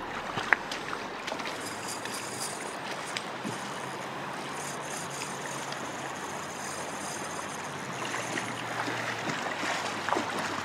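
Steady rush of river water, with one sharp knock about half a second in.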